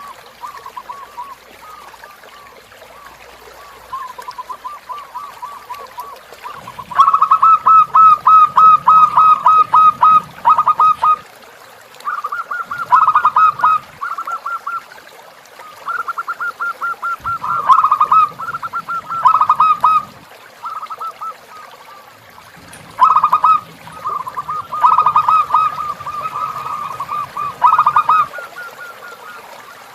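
Zebra dove (perkutut) singing: fast runs of short repeated cooing notes. They are soft for the first few seconds, then come in loud stretches of a few seconds each.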